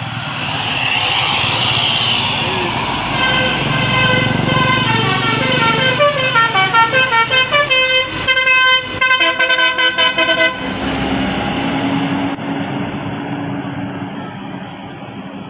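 Bus telolet horn, a Basuri multi-tone air horn, playing a quick tune of stepped notes for about seven seconds, the notes coming faster toward the end before it cuts off. Traffic and a bus engine run underneath it.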